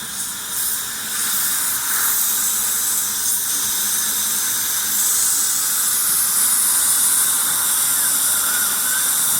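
Steady high hiss of a dental air-polishing handpiece spraying air, water and polishing paste onto the teeth, with the suction tubes drawing off the water at the same time. The hiss grows louder about a second in.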